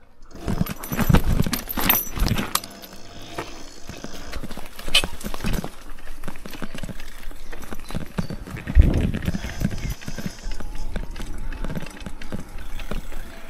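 72-volt electric downhill mountain bike ridden fast over a rough grass and dirt trail: irregular knocking and rattling of the frame, chain and tyres over the bumps. Heavy thumps come about a second and two seconds in, and again near nine seconds.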